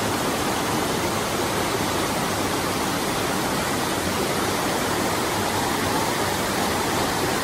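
Waterfall rushing steadily: white water pouring over a rock ledge into a deep pool, heard close by as an even, unbroken roar of noise.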